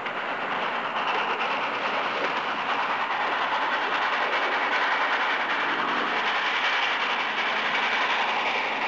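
Steam train running along the track, a steady dense rush of noise from the moving train and its wheels on the rails.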